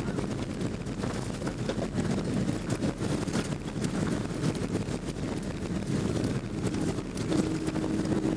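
Cabin noise inside a Boeing 767-330ER speeding along the runway on landing: a steady rumble of airflow and engines. A steady humming tone joins in near the end.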